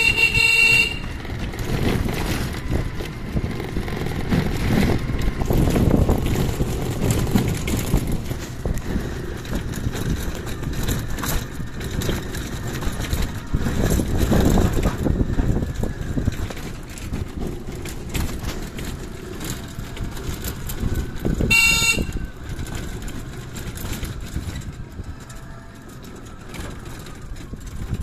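Ride on a small open handlebar-steered passenger vehicle along a rough village lane: a continuous low rumble of the ride with wind on the microphone, broken by two short horn toots, one at the very start and one about 22 seconds in.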